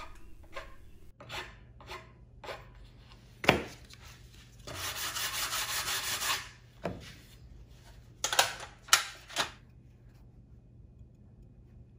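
Hand file and sandpaper rubbing along the edge banding of a plywood panel, easing and smoothing the trimmed edge: a few light strokes, a sharp knock about three and a half seconds in, about two seconds of steady sanding, then three quick rubs before it goes quiet.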